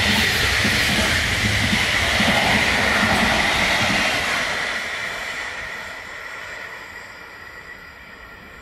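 Container freight train's wagons rolling past close by on the rails, a steady rolling noise that fades away from about halfway through as the end of the train moves off.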